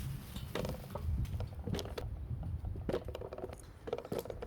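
Irregular small clicks and knocks of a metal clipper blade and diamond sharpening stone being handled and set down, about eight taps spread unevenly.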